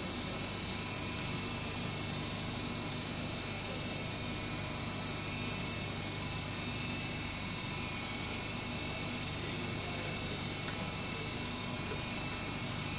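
A steady mechanical drone with a low hum under it, unchanging throughout.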